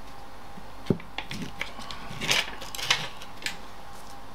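Small clicks and taps from opening and handling a plastic tub of spreadable margarine, with one sharp knock about a second in and a brief rustle a little after two seconds.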